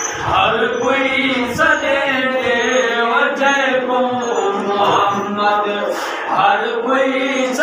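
A man's voice chanting a devotional recitation in long held notes that slide slowly up and down.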